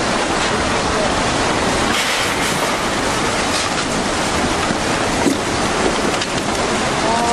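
Tsunami floodwater surging through a town, carrying wrecked houses and timber: a loud, steady rushing noise with a few faint cracks of debris.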